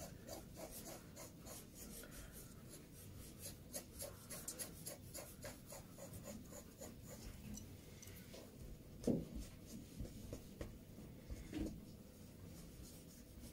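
Graphite pencil drawing lines on a sheet of drawing paper: a run of light scratching strokes, with two low thumps in the second half.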